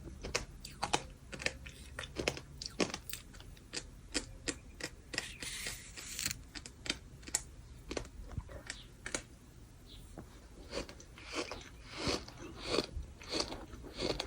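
Bird sand being chewed close to the microphone: irregular gritty crunches and crackles, with a brief hiss of grinding grit about five seconds in.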